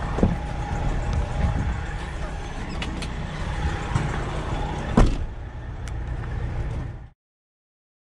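Semi-truck diesel engine idling with a steady low rumble, with the clicks of the cab door being opened and one loud thump about five seconds in. Everything cuts off suddenly near the end.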